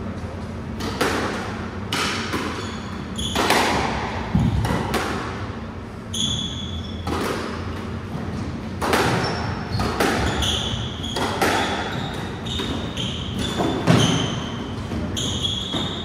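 Squash rally: the ball is struck by rackets and smacks off the court walls in sharp, echoing hits about once a second, with short sneaker squeaks on the wooden floor from about six seconds in.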